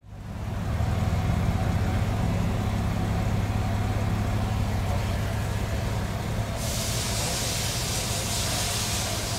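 Steady low mechanical hum of a running motor. A steady hiss joins about two-thirds of the way through.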